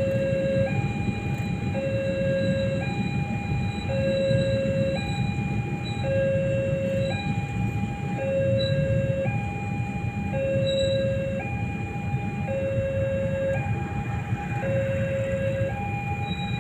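Railway level-crossing warning alarm repeating a two-tone low-high chime, about one pair every two seconds, signalling a train on the crossing. Under it runs the low rumble of a slow container freight train passing.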